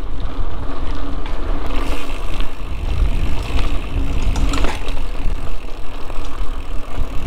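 Mountain bike rolling along a muddy dirt trail: a heavy low rumble of wind on the microphone and tyres on the ground, with the bike rattling and one sharp clatter about four and a half seconds in.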